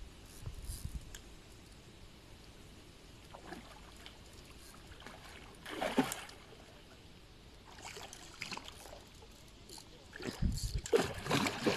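A hooked carp splashing at the water's surface while being played in: one short splash about six seconds in, and a longer run of irregular splashing near the end.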